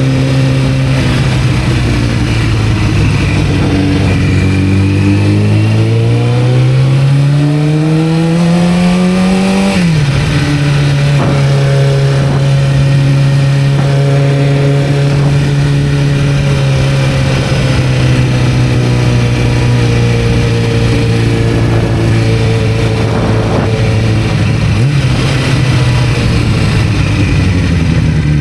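1991 Kawasaki ZZR-400 inline-four motorcycle engine under way. The revs hold steady, then climb smoothly for about six seconds and drop sharply at an upshift about ten seconds in. After that the engine runs at a near-steady cruise, with another brief change in pitch near the end.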